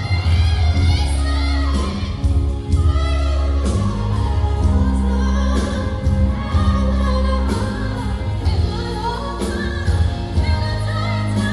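A woman singing with wide, gliding vocal runs over a live band, with a heavy bass line and regular drum hits.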